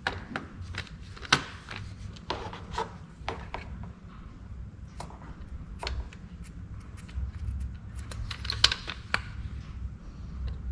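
Scattered light clicks and taps of metal tools being handled, irregular and a few a second at most, over a low rumble.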